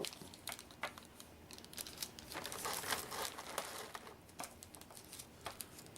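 Plastic packaging being crinkled and handled as it is opened by hand, with irregular small clicks and crackles.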